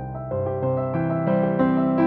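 Soft background piano music, slow sustained notes with new chords coming in every half second or so.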